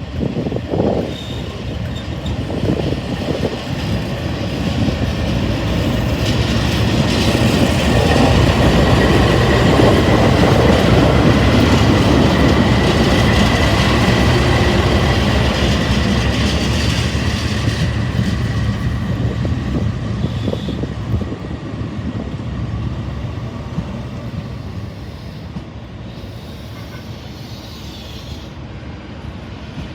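Diesel-hauled passenger train rolling slowly along the platform, its wheels clacking over the rail joints. It grows louder to a peak midway, with a steady high wheel squeal, then fades away.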